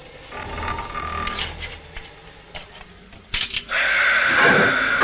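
Steam locomotive: light mechanical clicking and clanking, then about three and a half seconds in a sudden blast of steam that settles into a steady loud hiss as the engine gets under way.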